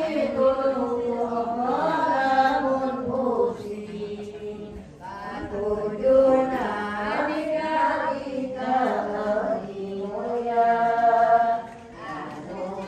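A group of women chanting an Islamic devotional recitation together in long melodic phrases, with held notes and sliding pitch.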